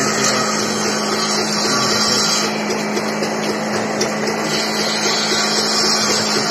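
Combination randa woodworking machine running steadily while its circular saw blade cuts a block of wood. The sharper cutting noise eases about two and a half seconds in, and the machine's steady hum carries on.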